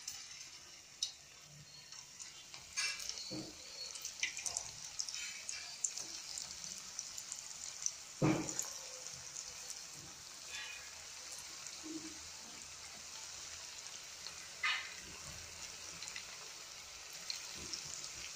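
Semolina-and-potato fries deep-frying in hot oil in a kadai, a steady sizzling hiss, with a few sharp clicks and knocks, the loudest about eight seconds in.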